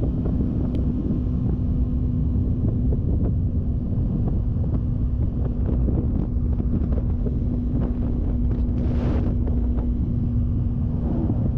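Wind buffeting the helmet microphone while riding at speed, over the steady drone of the Yamaha YZF-R3's 321cc parallel-twin engine held at constant revs. A brief rushing hiss about nine seconds in.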